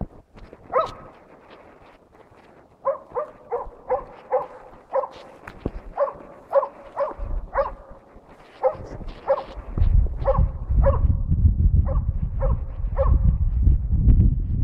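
A Jämthund (Swedish elkhound) gives steady, even barks at about two a second, the bay barking of a moose dog holding a moose at bay. A low rumbling noise joins about two-thirds of the way through.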